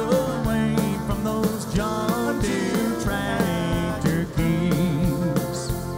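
Live country band playing with drum kit and guitars between sung lines.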